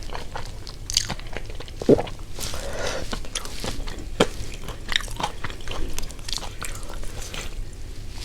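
Close-miked eating: crunchy bites and chewing, with many irregular sharp clicks and crackles, one sharper bite about two seconds in.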